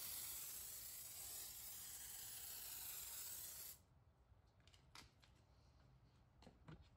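Kwazar Venus pump-up pressure sprayer hissing steadily as it sprays foam soap, cutting off suddenly a little under four seconds in. After that, near silence with a few faint clicks.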